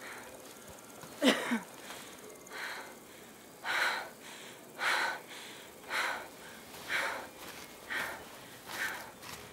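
A person breathing hard and rhythmically, about one heavy breath a second, as when walking uphill. About a second in there is a single louder, short vocal sound with a falling pitch, like a gasp or groan.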